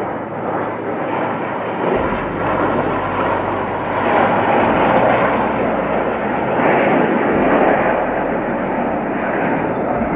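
Airplane flying past, a loud rushing engine roar that swells over the first few seconds and then holds.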